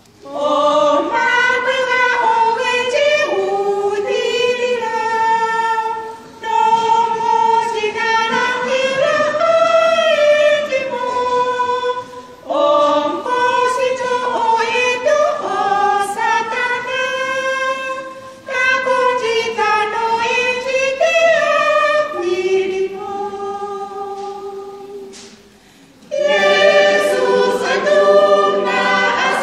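Women's choir singing a hymn a cappella, in phrases with brief breaks about every six seconds. The singing fades about three-quarters of the way through, then the full choir comes back in strongly near the end.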